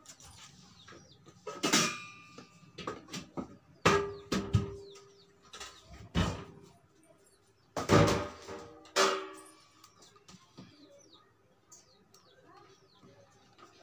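Stainless-steel kitchen vessels clanking: a handful of sharp metal knocks that ring briefly as a spoon and steel bowl strike a steel flour container, loudest about 8 and 9 seconds in. Faint bird chirps come through near the end.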